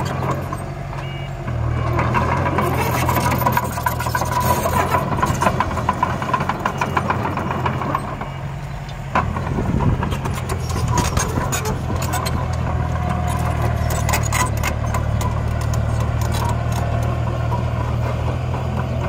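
Diesel engine of a mini bulldozer running under load. It steps up about a second and a half in, eases off around eight seconds and picks up again just after nine, with frequent metallic clanks and rattles and a high steady whine in stretches.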